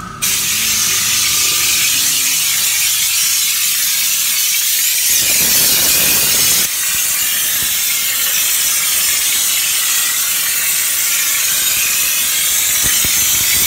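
Compressed-air spray gun hissing steadily as it sprays liquid sound-deadening compound into a wheel arch, with a short dip about seven seconds in.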